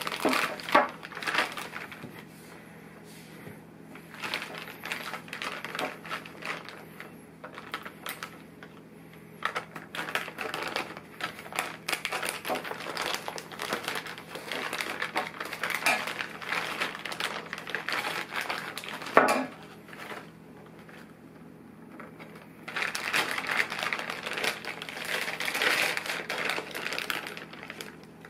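Plastic bag and bubble-wrap packaging crinkling and rustling in irregular crackles as it is cut open with scissors and pulled apart, with one sharp knock about two-thirds of the way through.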